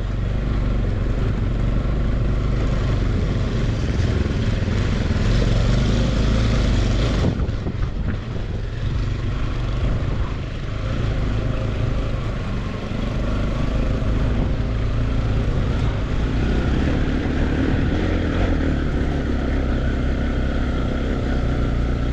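Motorcycle engine running steadily while riding, with wind on the microphone that drops away about seven seconds in.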